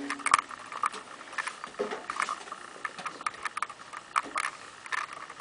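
Irregular clicks and scuffs from footsteps on a freight car's steel step and the track ballast beside it, mixed with handling noise on the hand-held camera.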